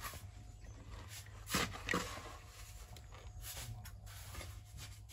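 Faint knocking and scraping, with two sharper knocks about a second and a half and two seconds in.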